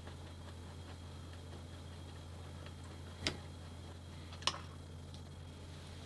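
Two short clicks about a second apart, from hand work on the fork's lower-leg bolts, over a steady low hum.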